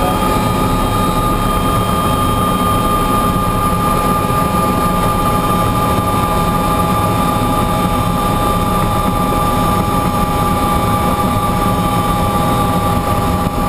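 Bell 206 JetRanger helicopter running on the ground, its Allison 250 turboshaft engine giving a steady high whine over the beat and rumble of the turning main rotor.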